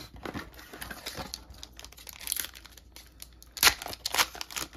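Foil trading-card booster pack crinkling as it is handled and torn open, an irregular run of crackles with the sharpest, loudest ones about three and a half seconds in.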